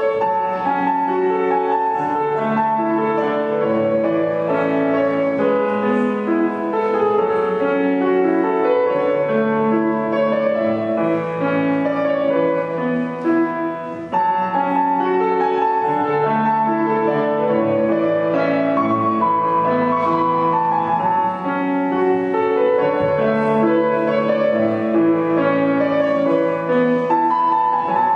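Grand piano played, a flowing piece of held notes and chords that ring into one another.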